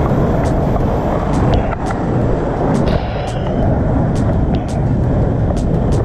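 Steady rushing roar of a waterfall pouring into its pool, loud and unbroken, with scattered sharp clicks over it.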